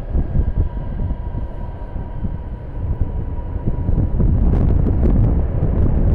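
Strong gusting wind buffeting the microphone in a loud, low rumble. A faint steady whine runs under it for the first two seconds, and a few sharp clicks come about four and a half seconds in.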